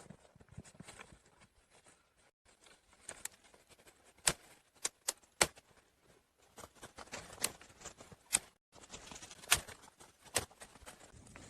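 Irregular sharp knocks and snaps over soft rustling, several in quick succession, twice broken by brief drops to silence.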